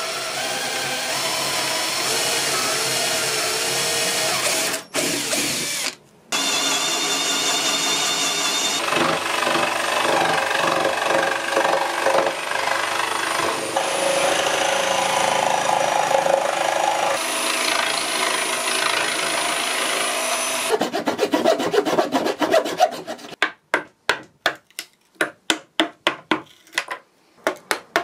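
A cordless drill boring into an oil-finished wooden board, then a jigsaw cutting notches out of it for cables, the motor running steadily with two short stops near the start. Near the end comes a quick series of short separate strokes from hand work on wood.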